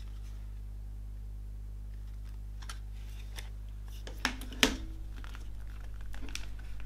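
Plastic CD jewel case being opened and handled: a few faint clicks, then two sharp plastic clicks a little past halfway, followed by light tapping and rustling.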